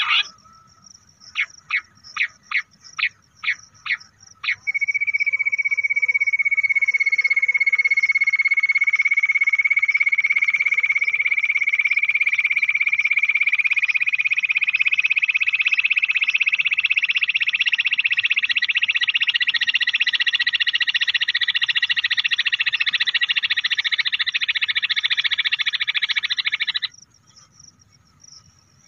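A recorded bush quail call played as a hunting lure: about eight short sharp notes, then a long, very fast trill that climbs slowly in pitch for over twenty seconds and cuts off abruptly.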